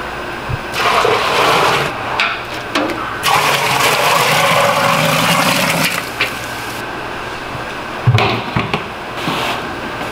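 Water pouring from a tilted pot into a large stainless steel pot, a steady splashing stream that eases off about six seconds in, followed by a short knock near the end.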